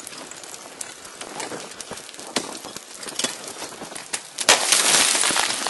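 Ice axe picks and crampon points striking the ice of a frozen waterfall, a scatter of sharp knocks. About four and a half seconds in comes a sudden, louder rushing hiss that lasts about a second and fades.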